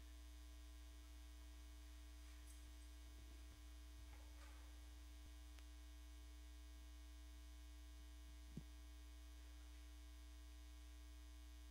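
Near silence with a steady low electrical mains hum, and one faint click about eight and a half seconds in.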